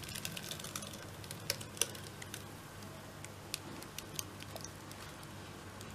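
Thick blended carrot pulp pouring from a blender jar into a cloth-lined plastic strainer: quiet wet squishing with scattered small clicks and ticks.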